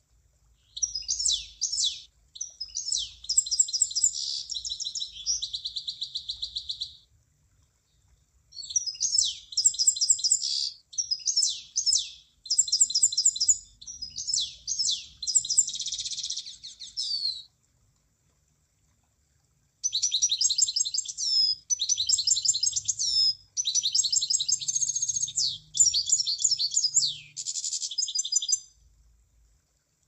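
An emprit (munia) singing three bouts of rapid, high-pitched chirps and trills. The bouts are broken by gaps of a second or two of silence.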